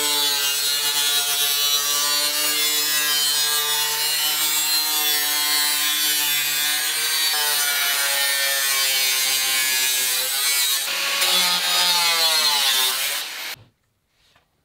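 Angle grinder with a thin metal-cutting disc cutting through the van's steel wall panel, its motor whining steadily under load. Near the end the whine drops in pitch as the grinder winds down, then stops.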